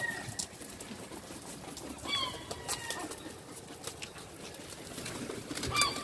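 Herring gulls feeding in a flock: a short gliding call about two seconds in and another near the end, over scattered clicks of beaks pecking and the flap of wings as birds jostle and take off.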